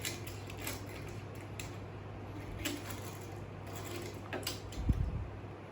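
Small plastic toy cars being handled and set down: scattered light clicks and knocks, with a dull thump about five seconds in.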